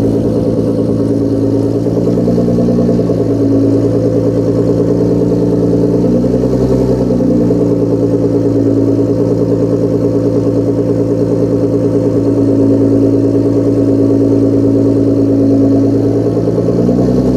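Nissan GT-R R35's twin-turbo V6 idling steadily, with no revs.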